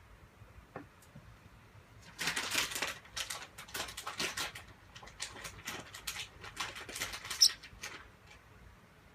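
A pet bird making a run of scratchy clicks and rustles, starting about two seconds in and dying down near the end, with one brief high squeak partway through.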